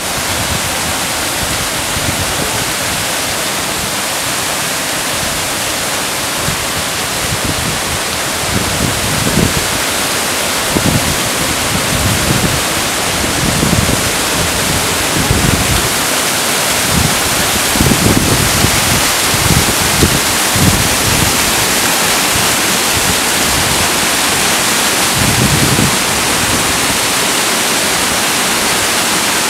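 Waterfall pouring, a steady loud rush of falling water. Irregular low rumbling swells rise and fall through the middle.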